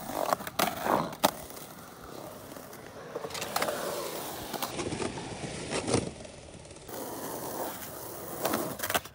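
Skateboard wheels rolling on concrete, with several sharp knocks of the board scattered through.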